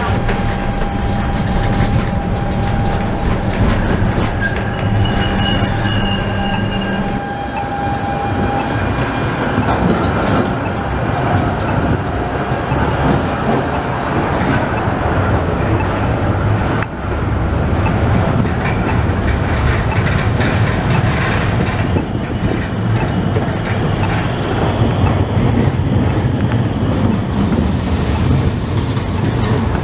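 Electric trams running on street track: steady motor hum and running noise from inside a tram at first, then, after cuts, trams rolling past with a continuous rumble of wheels on rail and a thin high wheel squeal.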